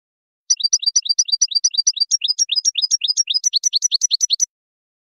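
European goldfinch song: a fast, even run of high chirps, about eight a second, switching partway through to a different, sliding note.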